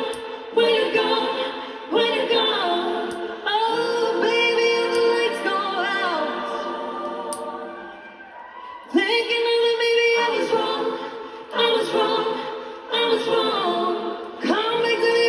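Music: a song sung by several layered voices, in held phrases that begin every second or two, dipping quieter about eight seconds in.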